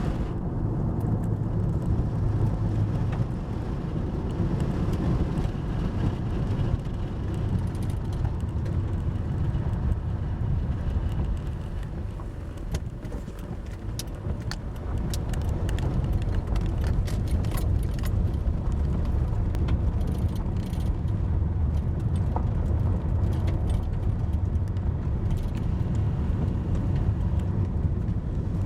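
Steady road and engine rumble inside a moving car, with a scatter of light clicks and ticks midway through.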